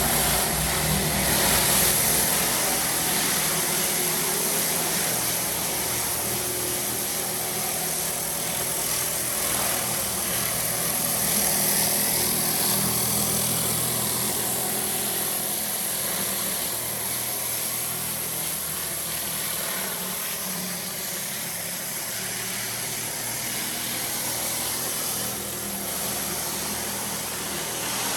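Pressure-washing rig's engine running steadily, a continuous hum with a hiss above it.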